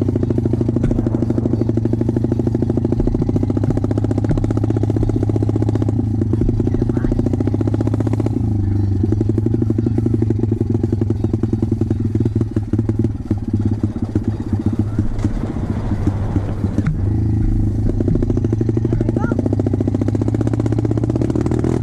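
Off-road motorbike engine running as the bike is ridden over rough gravel ground. The engine note holds steady, turns uneven with on-off throttle for several seconds in the middle, then steadies again near the end.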